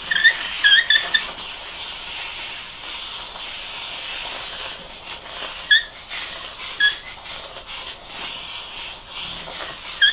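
Handheld upholstery steamer hissing steadily as its nozzle is held on a cushion seam to soften the covering and shrink out a wrinkle. Several short high squeaks cut in, a cluster in the first second and a few more later.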